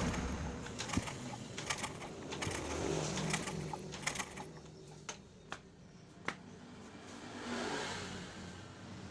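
A string of light, irregular clicks and taps, thinning out after about six seconds, over a low vehicle-like rumble that swells and fades twice.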